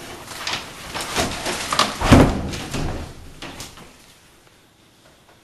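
A run of knocks and thumps, the loudest a heavy thud about two seconds in.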